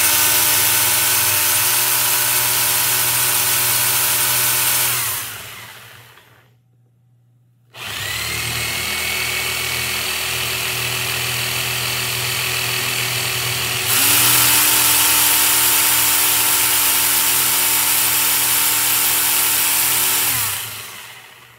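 Corded power saws, a Sawzall reciprocating saw and a flush-cut saw, running free without cutting, with a steady motor whine. The sound winds down and stops about five seconds in and starts again about two seconds later. It steps louder at about fourteen seconds and winds down near the end.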